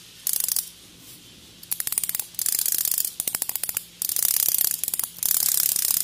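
Bare antique mechanical alarm-clock movement, with no bells fitted, running its alarm: the hammer rattles rapidly back and forth on the escape wheel as the alarm spring unwinds. A short burst comes first, then from about two seconds in longer runs of fast clicking with brief pauses.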